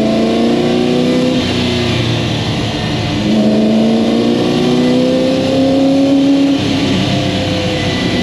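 1968 Ford GT40 Mk1's mid-mounted Ford small-block V8, heard from inside the cockpit, pulling hard with revs climbing. It eases off about a second and a half in, then climbs steadily again from about three seconds and lets off again near six and a half seconds.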